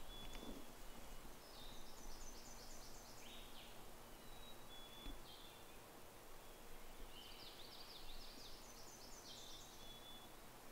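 Songbirds singing faintly in the woods. One bird gives a quick series of repeated high notes twice, about a second and a half in and again around seven seconds, with a few single whistled notes in between, over a quiet background hiss.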